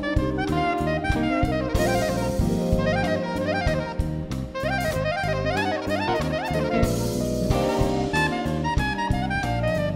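Live jazz-funk band with a saxophone playing a lead line of quick rising and falling runs over drum kit, bass and electric keyboards. Cymbal crashes come about two seconds in and again near seven seconds.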